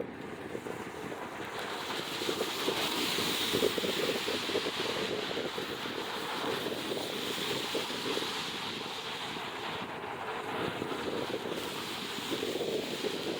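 Wind rushing over the microphone as a steady noise, swelling about two seconds in and again near the end.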